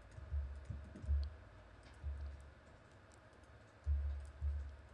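Faint clicks of a computer mouse and keyboard, with several soft low thumps, the loudest about four seconds in.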